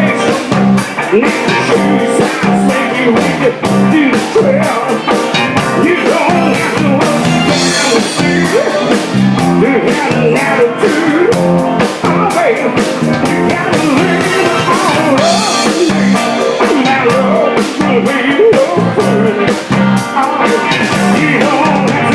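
Live rock band playing an instrumental break: a lead guitar line with bending notes over a steady drum-kit beat and bass.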